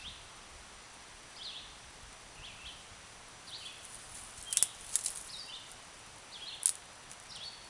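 Steel striker scraped against flint in a few sharp, high-pitched strikes, two close together about halfway through and one more near the end. A bird calls a short descending chirp about once a second throughout.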